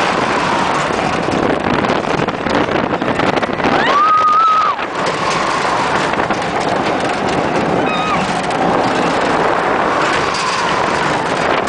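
Rushing wind and rumble from a Ring of Fire looping fairground ride as it swings through its loop. About four seconds in, a short high cry rises and holds, likely a rider's shriek.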